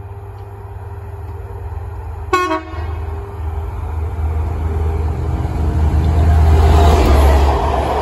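Class 67 diesel locomotive 67024 approaching at speed: one short horn toot about two seconds in, then its EMD two-stroke V12 engine drone growing steadily louder and loudest as it runs past near the end, where the rush of the passing coaches builds.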